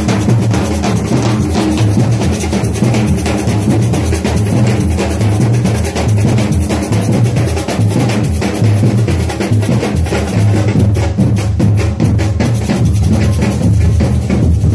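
A marching drum group playing large bass drums with mallets and sticks: a loud, continuous driving rhythm of many drums beating together.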